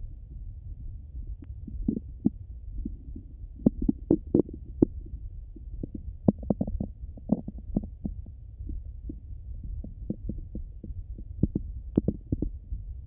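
Bowel sounds of a hungry stomach heard through a stethoscope: irregular clusters of short pops and gurgles over a low steady hum, busiest in the middle and again near the end. These are the gurgles of an empty stomach and gut contracting.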